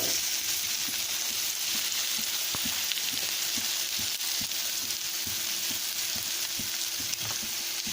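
Chopped onion, carrot and capsicum sizzling steadily as they stir-fry in hot oil in a pan, with scattered light clicks.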